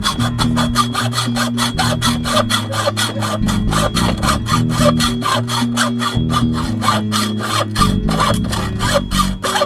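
Hacksaw cutting through a metal gate pole with rapid, even back-and-forth strokes, about five a second, over background music.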